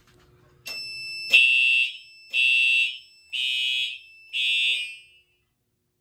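A click, then four short fire alarm horn blasts about a second apart from Simplex TrueAlert horns. This is the Fire-Lite panel's audible walk test responding to the manual evacuation key switch on zone 4.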